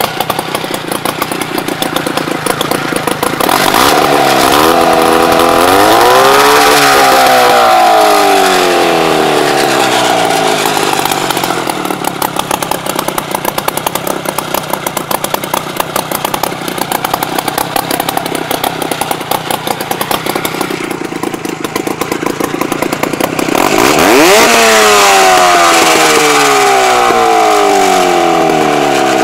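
Freshly rebuilt Rotax two-cylinder, two-stroke snowmobile engine running, with a rough, uneven idle. It is revved twice: a quick climb about four seconds in that winds slowly back down, and another near the end.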